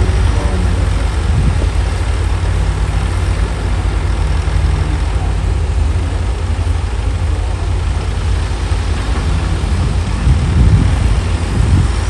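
Heavy diesel engine running steadily at low revs: a dump truck idling with its tipper bed raised while it unloads dirt.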